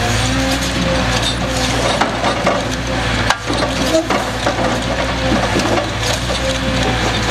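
Scania R580 V8 timber truck running steadily with a low hum while its Epsilon Palfinger E110L crane works, a steady hydraulic tone over it. A few knocks and creaks of logs being handled in the crane.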